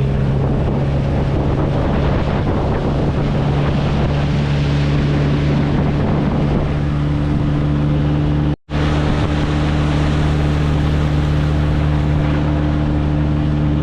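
Motorboat engine running steadily under way, with wind buffeting the microphone and rushing water. The sound cuts out for an instant about two-thirds of the way through.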